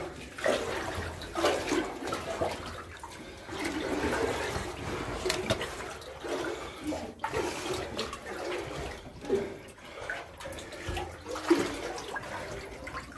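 Legs wading through knee-deep floodwater in a mine tunnel, the water sloshing and splashing in irregular surges with each stride.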